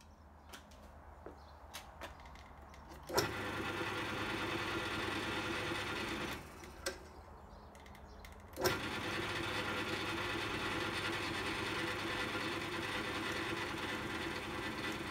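Record Power CL3 wood lathe's electric motor switched on with a sharp click and running steadily at 925 rpm, with no work mounted. About three seconds later it drops away, then it is switched on again with another click and runs steadily.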